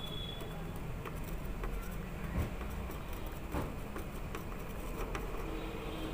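Soldering iron tip working over the solder pads of a circuit board, cleaning them: a few faint taps and clicks over a steady low hum.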